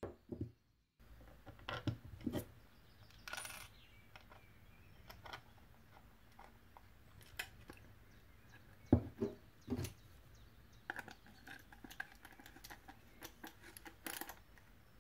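Metal washers and cake-stand fittings clinking and tapping against each other, the table and the resin tray: scattered light metallic clicks and knocks, the loudest a few taps about nine to ten seconds in.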